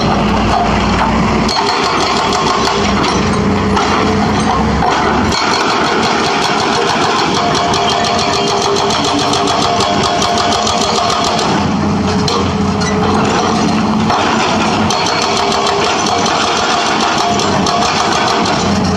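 Hitachi Zaxis 210F excavator running while its hydraulic breaker hammers a concrete road slab in rapid, evenly repeated blows. The hammering comes in long spells, with a short pause a little past the middle while the engine keeps running.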